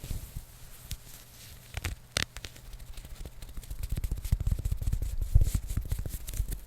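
Close-miked handling noise of the kind made for ASMR triggers: scattered taps and scrapes, a sharp click about two seconds in, then a fast dense run of tapping and rubbing from about four seconds on.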